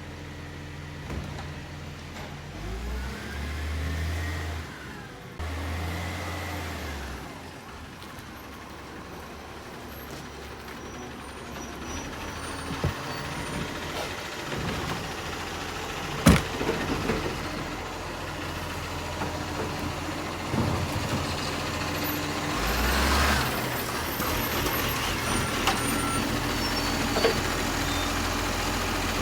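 Garbage truck engine running, rising in level a few seconds in and again near the end, with a single sharp bang about halfway through.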